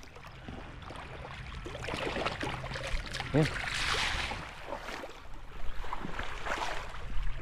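Water splashing and sloshing, swelling about halfway through and again near the end, over a low steady hum.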